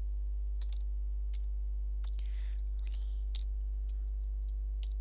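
Computer keyboard keys clicking in scattered single keystrokes as numbers are typed, over a steady low electrical hum.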